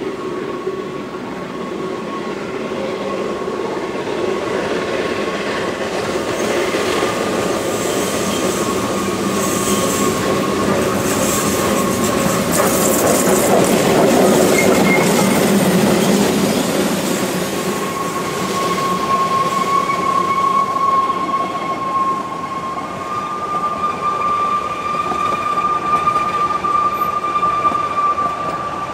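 NG/G16 Garratt steam locomotive working past at close range, growing louder to a peak about halfway through, then its narrow-gauge coaches rolling by with a thin, steady wheel squeal on the curve.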